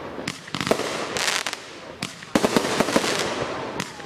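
Consumer fireworks going off: two volleys of sharp bangs, each trailing into crackling, the first about a third of a second in and the second a little past two seconds.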